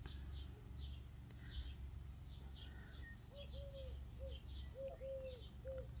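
Faint birds chirping in the background: repeated short high chirps, joined about halfway by a run of short, lower notes. A steady low hum runs underneath.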